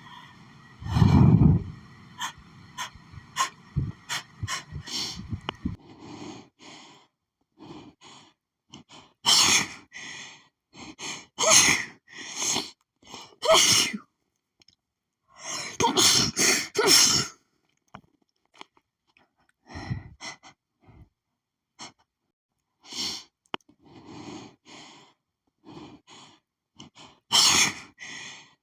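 A woman's allergic sneezing fit set off by sniffing lilies: a string of loud, sudden sneezes, several in quick succession around the middle and one more near the end, with quieter sniffs and breaths between them.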